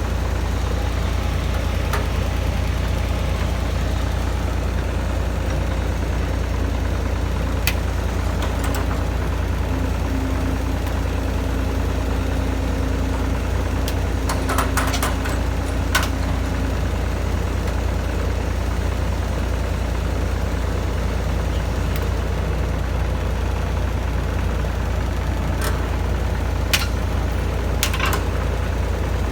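Heavy excavator diesel engine running steadily, with a few short sharp knocks now and then.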